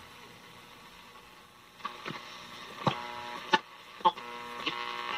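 1950s Bulova All-American Five tube AM radio being tuned across the band: low static at first, then a few sharp pops and a steady hum with tones that grow louder near the end as a station comes in.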